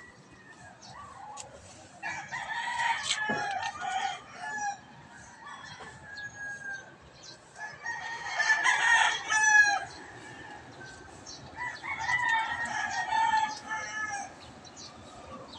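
Rooster crowing three times, each crow about two seconds long and spaced a few seconds apart.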